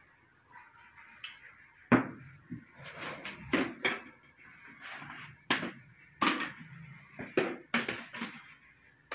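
Metal kitchen utensils clattering: a sharp knock about two seconds in, then a run of knocks and clinks.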